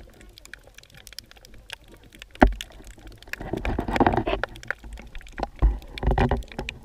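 Muffled underwater sound inside a camera housing: scattered small clicks, a sharp knock about two and a half seconds in, then an uneven gurgling rumble of moving water from about three seconds on.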